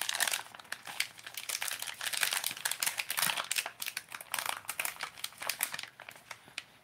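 Crinkly plastic bag of Zoom Baby Brush Hog soft plastic baits being handled and squeezed: a dense crackling that thins out near the end.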